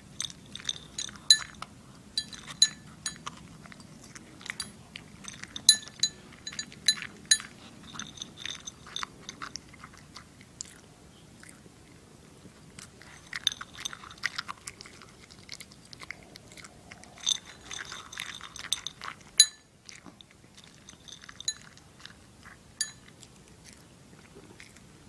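Toy poodle chewing and crunching dog food, with many sharp crunches coming in irregular clusters and a short lull about four fifths of the way through.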